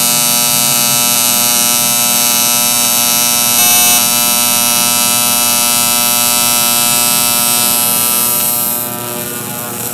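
AC TIG welding arc on aluminum plate: a steady, loud electric buzz with many evenly spaced tones. It drops in level near the end as the arc is eased off.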